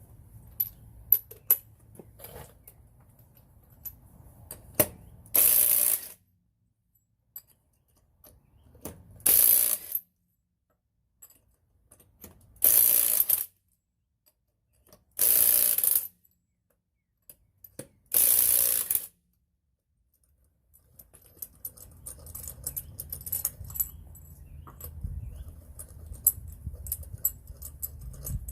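A cordless power tool runs in five short bursts of under a second each, spaced a few seconds apart, with scattered metallic clinks of tools and fasteners before and after.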